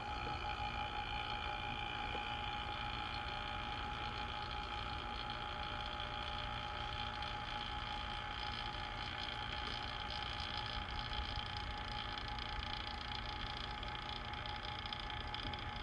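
Electric vacuum pump running steadily with a constant whine over a low hum, pulling a vacuum on the barrel of a ping pong ball vacuum cannon before firing.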